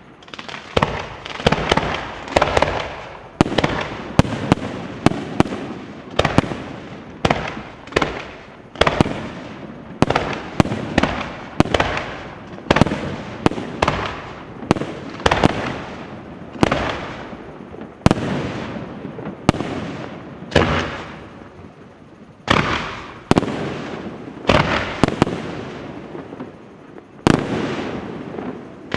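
Aerial firework shells bursting in quick succession: sharp bangs about one or two a second with no pause, each trailing off in a fading echo.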